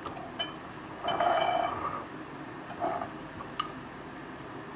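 A spoon clinking and scraping against a glass bowl and a tall drinking glass as fruit cocktail is scooped and spooned across. The loudest is a ringing clink about a second in, with softer clinks and sharp taps before and after.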